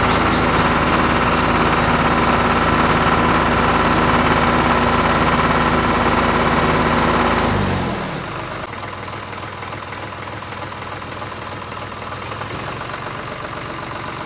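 Tractor engine idling steadily, then winding down: its pitch falls and it drops to a quieter hum about eight seconds in.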